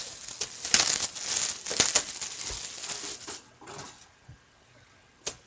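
Plastic shrink wrap being torn and crinkled off a cardboard box of hockey cards. Crackling, rustling handling noise with small clicks for about three seconds, then it goes quieter, with one sharp tap near the end.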